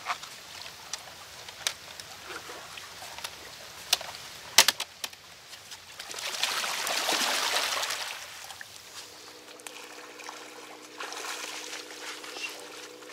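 Water sloshing and trickling around spearfishers swimming at the river surface. Sharp knocks come about four seconds in, and a louder rushing swell follows a couple of seconds later. After that a steady low hum takes over.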